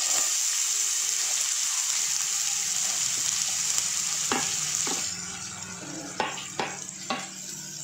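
Chopped onion hitting hot oil in a kadhai and sizzling at once: a strong, steady hiss that eases slightly after about five seconds. Several sharp clicks and scrapes come in the second half as a spatula pushes the last of the onion off the plate.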